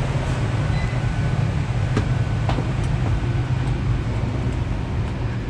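Steady low hum and rumble of a passenger train, heard from inside the carriage, with a couple of light clicks about two seconds in.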